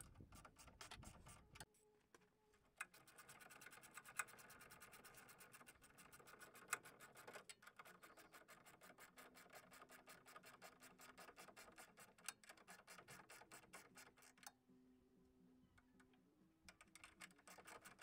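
Ratchet wrench clicking rapidly as it runs down a sway bar end link nut, in long runs broken by a couple of short pauses.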